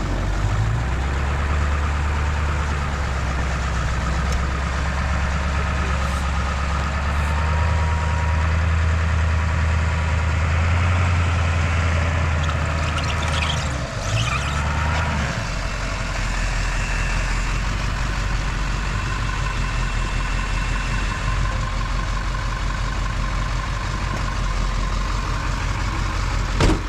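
Truck engine running steadily as the truck is moved into position; its low note drops and settles lower about halfway through. A short click near the end.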